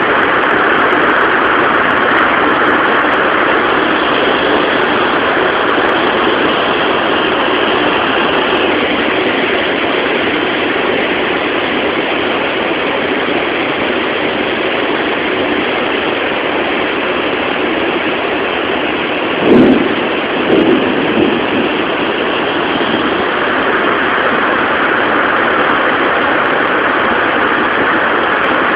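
Heavy rain pouring down in a thunderstorm, a loud steady hiss. About two-thirds of the way through comes a sudden loud crack, followed within two seconds by two smaller bangs.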